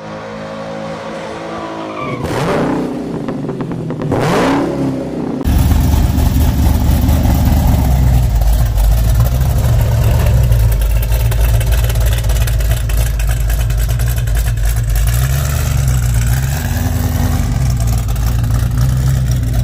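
About five seconds of edited intro with falling and sweeping sounds, then a cammed 1972 Dodge Challenger's engine running loud with a heavy, steady low exhaust rumble as the car pulls away.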